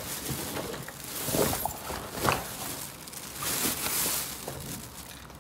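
A jacket sleeve rustling and rubbing close against the recording phone, in uneven swells, with a sharper knock a little over two seconds in.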